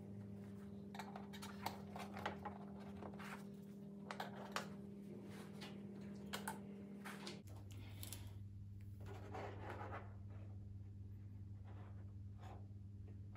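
Faint, scattered scratching and light taps as hands handle an LED light strip against a TV's plastic back panel, over a steady low hum.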